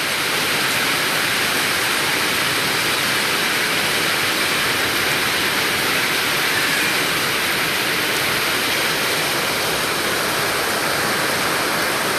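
Heavy rain pouring down: a steady, even rushing hiss of water.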